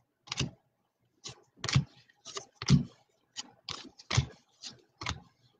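Trading cards being flipped through one after another, a string of about a dozen short, irregular card slaps and clicks.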